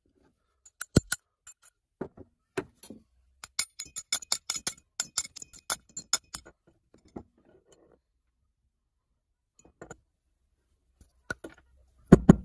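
Old rusty vise parts clicking and clinking as the jaw casting is twisted by hand off its threaded screw. The clicks come in a quick run in the middle and thin out after that, with a heavier knock near the end.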